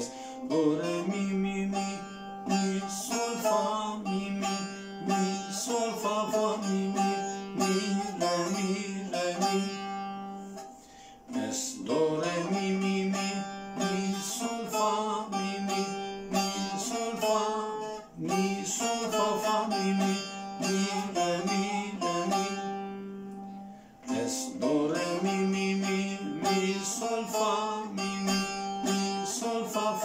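Short-neck bağlama (kısa sap saz) tuned to C, plucked in a quick Turkish folk melody over a ringing open-string drone. The phrase is played three times, with a short break before each repeat.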